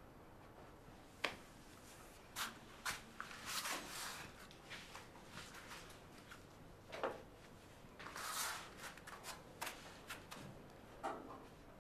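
Quiet room tone broken by scattered short rustles and light clicks, a few to a couple of seconds apart, the longest a brief rustle about eight seconds in.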